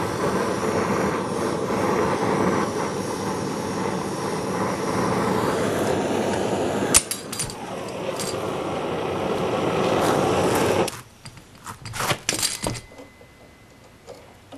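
Oxyacetylene torch flame burning with a steady rushing hiss while a throttle linkage rod is heated for bending, with a sharp click about seven seconds in; the flame cuts off suddenly about eleven seconds in, followed by scattered light metal clinks and taps.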